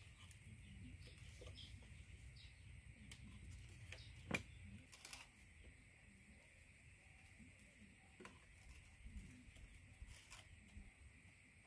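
Near silence: faint outdoor ambience with a steady high hum, and a few light clicks and taps of hands working wire around bamboo slats, the sharpest about four seconds in.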